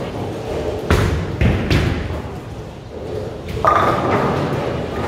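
A bowling ball thuds onto the lane about a second in, followed by a couple of lighter knocks as it rolls. Nearer the end comes a sudden crash of Brunswick Max Stripe pins being knocked down, ringing on as they scatter, which here is a strike.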